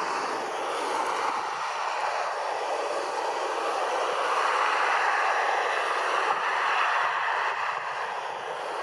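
Airbus A320-214's CFM56 jet engines at takeoff thrust: a steady rushing noise as the airliner lifts off and climbs away.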